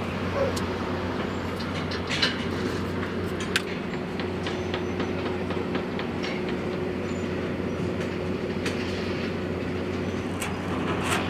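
A steady low mechanical drone, like a large engine running, with a faint held tone in the middle. Scattered sharp clanks and knocks come over it.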